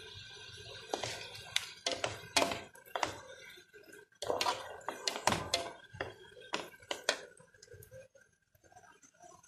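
Kitchen utensils knocking and clinking against cookware: about fifteen irregular sharp knocks over roughly six seconds, thickest in the middle, then dying down.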